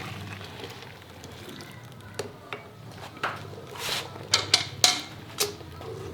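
Knocks and clinks of a milk bucket and measuring vessel as milk is measured out measure by measure, a handful of sharp strikes, closest together in the second half.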